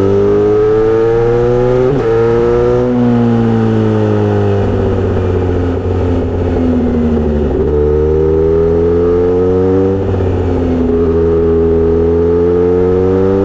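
Kawasaki Z900RS inline-four running through a short-pipe aftermarket muffler while riding. The exhaust note climbs, steps at a gear change about two seconds in, then falls away for several seconds. It climbs again with another shift near the ten-second mark and rises toward the end.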